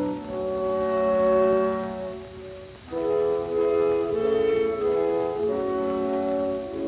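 Orchestral music with long held chords; it thins out briefly a little before the middle, then swells again.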